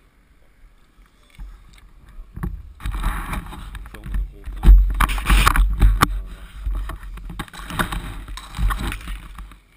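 Handling noise on a GoPro camera in its housing: rubbing, scraping and knocks as it is taken down and carried in a hand. It starts about two seconds in and is loudest around the middle.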